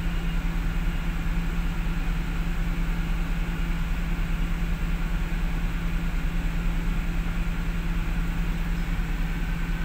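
Steady drone of a moving bus heard from inside the cabin: engine and road noise with a constant low hum.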